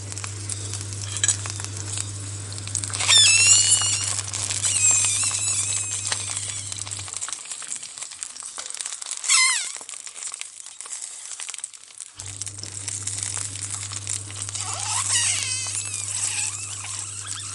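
Sausages sizzling and crackling in hot fat in a pan, with a few high squealing whistles that waver in pitch, about three seconds in, near the middle and near the end. A steady low hum drops out for a few seconds in the middle.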